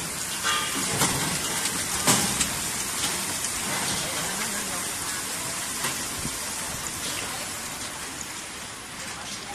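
Hot oil sizzling steadily in an industrial continuous mesh-belt fryer as sweet potato strips fry, with scattered sharp pops.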